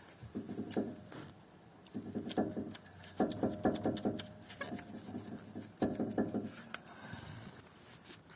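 Front stabilizer (anti-roll bar) link of a BMW X3 F25 knocking as it is worked, in about five short bursts of rapid clatter. The knock comes from a worn link whose upper dust boot is torn.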